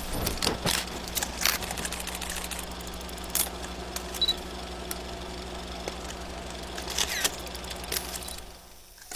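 A steady low mechanical hum with scattered clicks and taps, fading out near the end.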